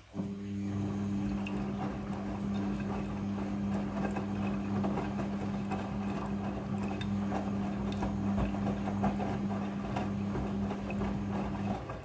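Midea front-loading washing machine in its rinse cycle: a steady motor hum as the drum turns, with wet laundry tumbling and sloshing in the rinse water. The hum stops abruptly near the end.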